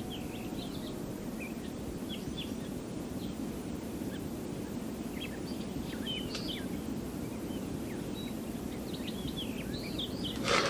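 Small birds chirping in short, scattered calls over a steady low background rush. A brief, loud burst of noise comes near the end.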